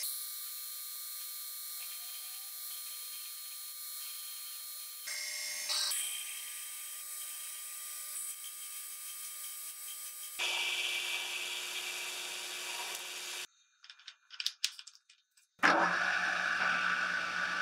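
Metal lathe cutting a spinning metal workpiece with carbide tooling: a steady hiss of the tool in the cut over the hum of the machine, changing at each cut between boring the bore, grooving and facing. About three-quarters of the way through it drops nearly silent for a moment with a few clicks, then a louder cut starts.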